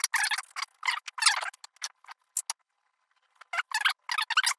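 Small machined metal parts of a replica revolver clicking and rattling as they are handled and worked: two busy runs of quick clicks, with a short pause between them.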